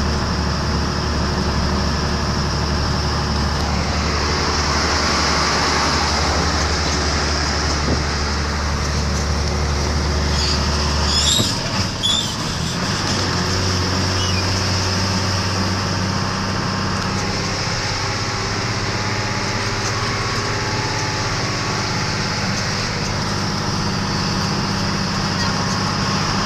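Engine and tyre noise of a moving vehicle heard from inside it: a steady drone whose engine note steps up in pitch about eleven seconds in, with two short clicks around the change.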